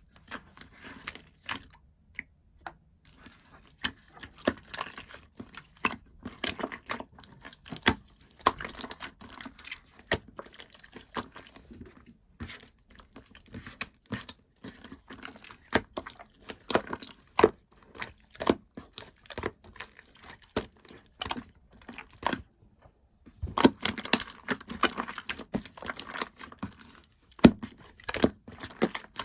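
Slime being squished, folded and stretched by hand, making many small sticky clicks and pops, with a denser run of crackling about three-quarters of the way through.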